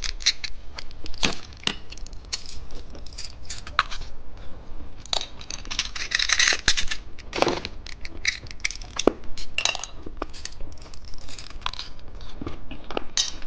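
Plastic candy packaging being handled and torn open: crinkling and tearing with many sharp plastic clicks and taps.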